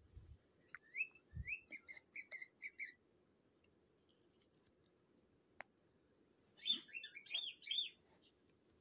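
Cockatiel chirping: a run of short rising chirps lasting about two seconds, then after a pause a louder burst of chirps near the end.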